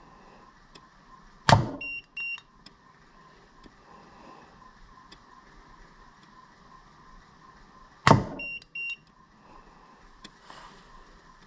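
A spring-loaded dart launcher is fired twice, about six seconds apart, through a chronograph. Each shot is a sharp snap, and a moment later comes a pair of short electronic beeps as the chronograph registers the dart. The darts clock just under 20 metres per second.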